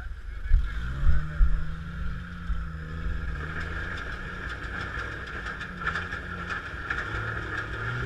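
Off-road Jeep's engine revving as it crawls up a rock ledge, the pitch rising about a second in and holding for a few seconds. A few heavy thumps come about half a second and a second in, and scattered clicks follow later.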